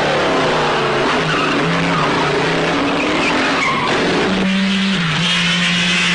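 Lancia-Ferrari D50's 2.5-litre eight-cylinder racing engine running at high revs, its note stepping up and down with gear changes and throttle. About four seconds in the sound changes abruptly to a steadier held note.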